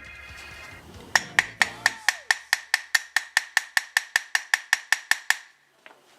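Hammer tapping a part into place: a quick run of light, evenly spaced taps, about four a second, with a metallic ring, starting about a second in and stopping near the end.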